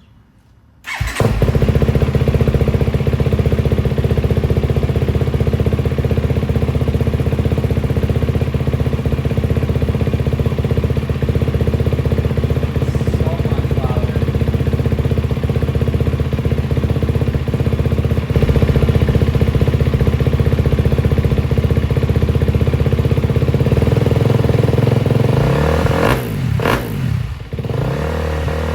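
KTM 250 SX-F's single-cylinder four-stroke engine, breathing through an FMF Factory 4.1 RCT titanium slip-on exhaust, starts up about a second in and idles loud and steady. Near the end its sound rises and falls several times.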